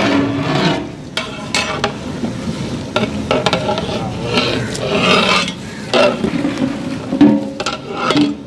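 A big metal ladle stirring and turning a large batch of raw mutton pieces through masala in a big metal cooking pot. Irregular scrapes of metal on the pot mix with the wet churn of the meat and a light sizzle from the hot masala.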